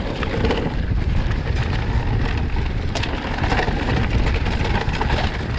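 Mountain bike riding down a rocky dirt trail, its tyres rumbling and crunching over loose stones, with frequent rattles and knocks from the bike and a sharper knock about three seconds in.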